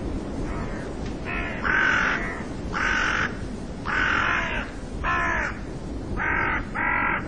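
A crow-like bird cawing: about seven caws in a row, over a steady rush of noise.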